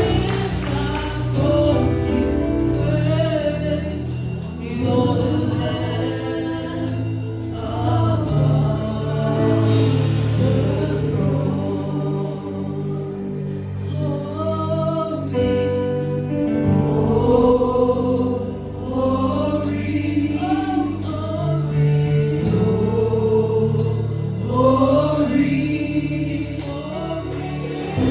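Gospel worship music: a group of voices singing praise together over instrumental backing, with sustained low bass notes and regular percussion hits.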